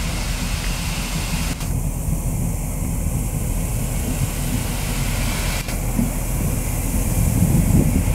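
Steady rumble and hiss of an Austerity 0-6-0 saddle-tank steam locomotive standing at rest, with steam escaping; the rumble grows louder near the end.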